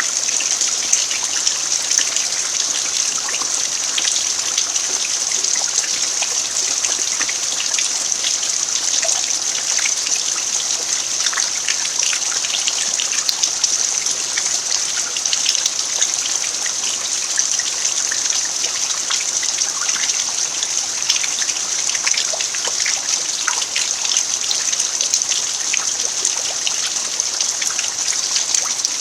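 Steady rain falling on a dirt yard: an even hiss with many individual drops ticking throughout.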